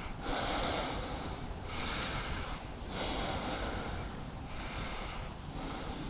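A person breathing close to the microphone, in noisy swells that come and go about every second and a half.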